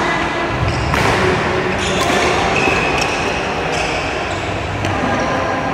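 Badminton rackets striking a shuttlecock during a rally: three sharp hits, the first two about a second apart, then a longer gap before the third, over steady background noise.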